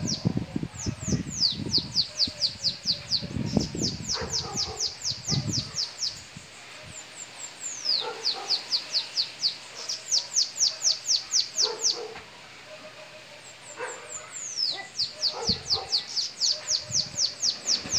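Caged bananaquit (sibite) singing its high, fast song four times. Each phrase opens with a downward-sliding note and runs on as a quick string of short, sharp falling notes, about four a second. Low knocking and rumbling sound under the first six seconds.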